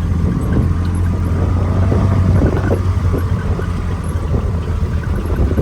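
A Kubota farm vehicle's engine running steadily with a strong low hum, as the vehicle moves along at low speed.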